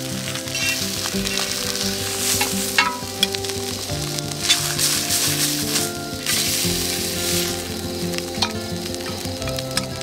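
Food sizzling and frying in a hot pan, stirred, with a few sharp utensil clicks, over soft background music.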